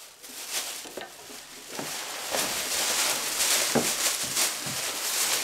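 Thin plastic shopping bags rustling and crinkling as groceries are taken out of them, getting busier about two seconds in, with a few sharper crackles.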